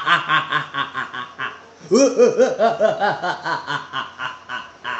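A man laughing in two long bouts of quick, rapid 'ha-ha' pulses, the second bout starting about two seconds in and trailing off near the end.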